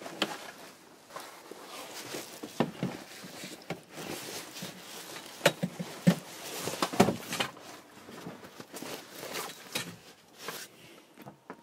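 Rustling and flapping of a Cabbunk children's fabric travel bed as it is handled and spread over van seats, with scattered knocks and taps at irregular moments.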